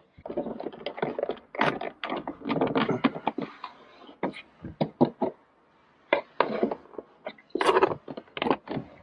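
Dashcam wire being worked in by hand behind a 6th-gen Honda Civic's plastic interior trim: irregular clicks, knocks and rustling, with a short pause about two-thirds in.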